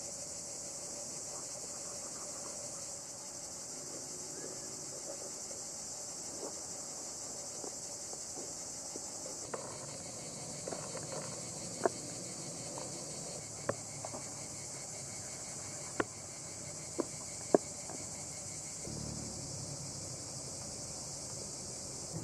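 Crickets chirring steadily and high-pitched in the background. In the second half, a knife slicing through a slab of raw fat taps sharply on a wooden cutting board about seven times.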